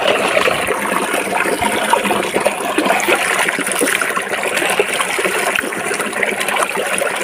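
Shallow stream water running and trickling over rocks close to the microphone, a steady wash of sound.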